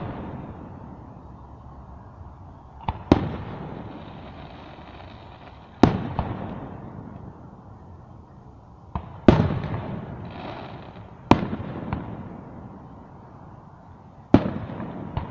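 Aerial firework shells bursting one after another: about five sharp bangs two to three seconds apart, each trailing off in a rolling echo.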